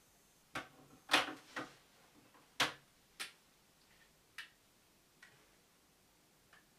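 Handheld calculator keys being pressed: about nine sharp, irregular clicks and taps, the loudest a little after one second and at about two and a half seconds in.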